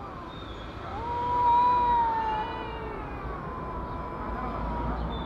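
Cats yowling at each other in a face-to-face standoff, a threat display. A long drawn-out yowl starts about a second in and is the loudest, lasting about two seconds, then a fainter drawn-out yowl carries on.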